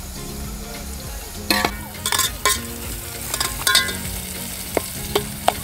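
Sliced onions sizzling in hot oil in a large pot, being fried to a light golden brown. A metal ladle stirs them and knocks and scrapes against the pot about a dozen times, mostly between one and a half and four seconds in and again near the end, each knock ringing briefly.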